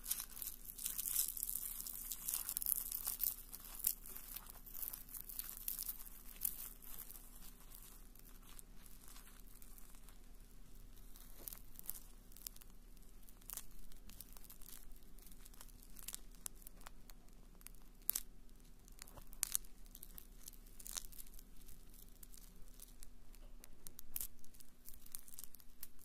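Marshmallows on a skewer crackling as they burn: a dense crackle with hiss for the first few seconds, then scattered pops and clicks.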